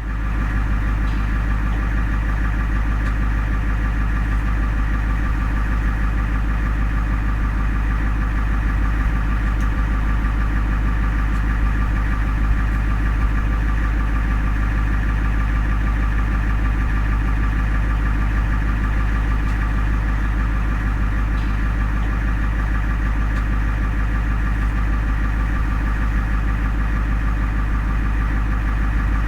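Ambulance engine idling steadily with a deep, even hum and no siren.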